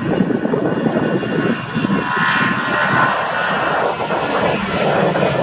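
Airbus A319CJ's two CFM56-5B turbofan engines at takeoff thrust as the jet lifts off and climbs away: a loud, steady jet roar with a higher whine strongest in the middle.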